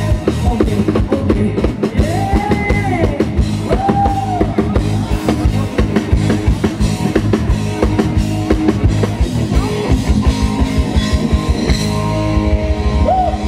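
Live rock band playing an instrumental passage: drum kit keeping a steady beat under electric guitar and bass. A couple of long notes rise and fall a few seconds in.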